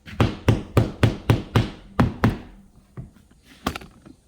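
Hammer striking drywall in a quick run of about nine blows, roughly four a second, then a few lighter taps near the end: beating down raised spots on the wall before mudding.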